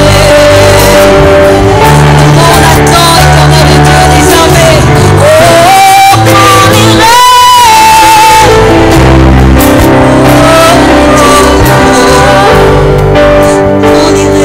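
A woman singing a slow worship song into a microphone over sustained backing chords, with a long held note that wavers with vibrato about halfway through.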